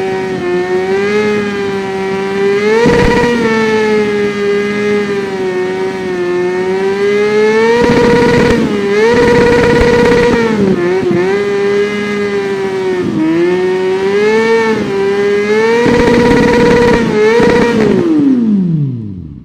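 Kawasaki Ninja 400 parallel-twin engine held at high revs, its note rising and dipping repeatedly as the throttle is worked. Near the end the revs fall away quickly.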